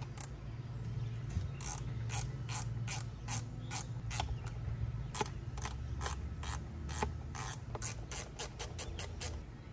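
Hand ratchet wrench clicking as bolts are loosened to take a cover off an outboard motor, about two to three clicks a second, quickening near the end before stopping.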